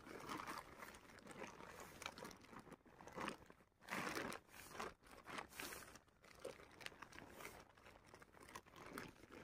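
Synthetic tent fabric rustling and crinkling in irregular bursts as it is folded and pressed flat by hand, the loudest rustle about four seconds in.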